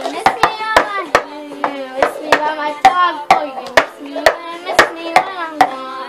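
Red plastic cups rapped, flipped and set down on a desk in the cup-game rhythm, sharp hits about two to three a second, with a child singing over them.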